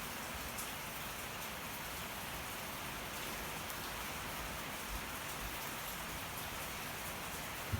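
Steady rain pattering, with faint small crackles from a wood fire burning. A single soft, low thump near the end.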